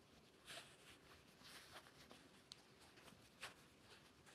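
Near silence, with a few faint, short rustles and soft taps of hands handling a stuffed cotton fabric puzzle ball.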